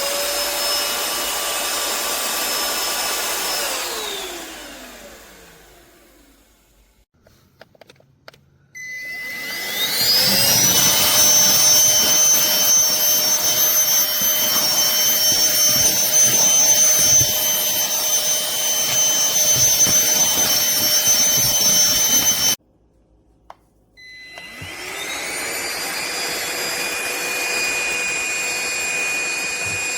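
Aspiron cordless handheld vacuum's motor running with a high whine. It spins down about four seconds in, and a few faint clicks follow while it is off. It is switched back on and winds up to full speed, running steadily. It cuts off suddenly about two-thirds of the way through and starts up again a second or so later.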